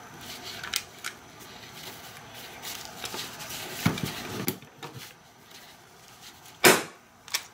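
Light clicks and rustling as the nylon collar and rivet are positioned under a rivet-setting tool, then one sharp strike near the end with a smaller tap just after, as the rivet is set to lock it in place.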